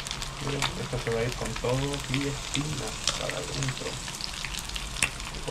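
Small whole mojarras (tilapia) frying in hot oil: a steady sizzle scattered with many sharp pops and crackles of spitting oil.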